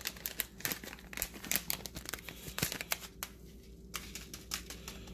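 Plastic bag of sesame seeds crinkling as it is handled to garnish the dish: a rapid crackling that thins out to a few scattered crackles after about three seconds.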